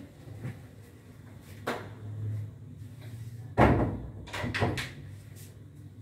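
Knocks and thumps of luggage being set down and handled, the loudest about three and a half seconds in, followed by a few smaller knocks, over a low steady hum.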